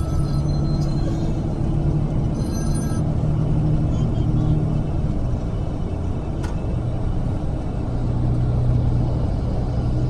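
Bus in motion heard from inside the cabin: a steady low engine drone over an even road rumble.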